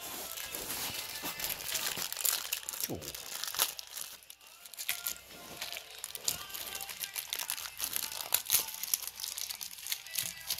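Clear plastic bags crinkling irregularly as hands handle and open packets of speaker feet and floor spikes.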